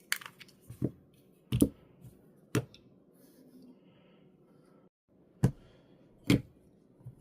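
Small plastic camera parts and accessories being handled and set down on a tabletop: a series of about six sharp knocks and clicks at uneven intervals.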